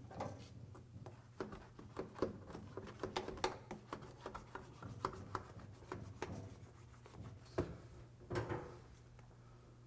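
A Dynamat butyl sound-deadening sheet being pressed and rubbed by hand onto a car's steel roof panel: irregular crackles, taps and rubbing that stop about eight and a half seconds in, over a low steady hum.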